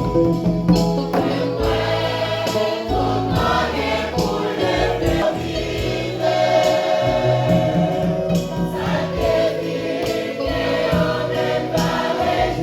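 Church choir singing a gospel-style hymn with instrumental accompaniment: steady low bass notes under the voices and a regular percussive beat.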